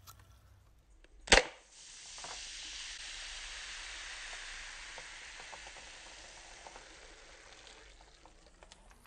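Aluminium soda can's pull tab cracked open with one sharp pop, followed by carbonated foam fizzing up and over the top of the can, a hiss that slowly fades over several seconds.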